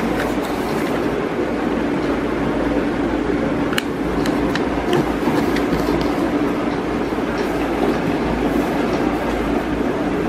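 A sheet of paper being handled and creased, with a few light crackles about four to five seconds in, over a steady rumbling background noise.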